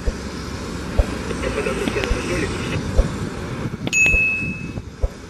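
Steady airport ramp noise with low wind thumps on the microphone. Faint voices come in about a second and a half in, and a short high beep sounds about four seconds in.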